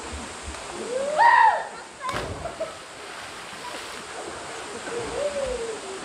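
Steady rush of a waterfall, with a person's loud, high-pitched shout about a second in and a short, sharp hit just after it.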